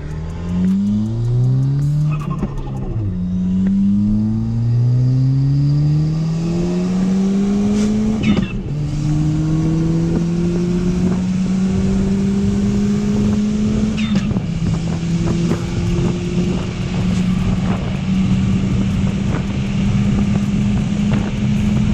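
Ford Fiesta ST's turbocharged 1.6-litre four-cylinder with a catless downpipe, heard from the cabin, accelerating hard through the gears. The engine pitch climbs and drops at upshifts about three, eight and fourteen seconds in, then holds nearly steady under load.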